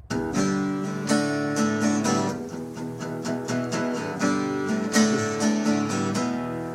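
Background music: acoustic guitar strumming chords, starting abruptly and fading out near the end.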